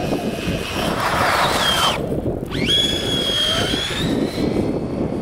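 Traxxas Slash radio-controlled truck driving, its motor's high whine falling in pitch and cutting out about two seconds in, then rising again and holding steady. Heavy wind rumble on the microphone runs underneath.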